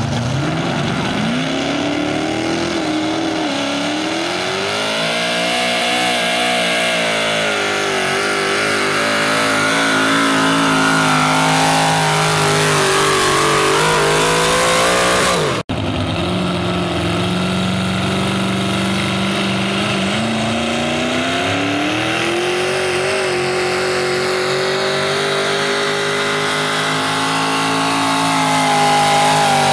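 Modified pulling tractor engines at full throttle, under load from a weight-transfer sled. The first engine's pitch climbs as it launches, then holds high and wavers down the track until a sudden break about halfway. A second tractor's engine follows at high revs, its pitch rising further, then dropping near the end as the throttle comes off.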